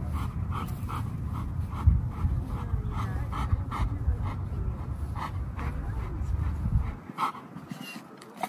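Golden retriever panting quickly and rhythmically, about three breaths a second, over a low rumble that drops away near the end.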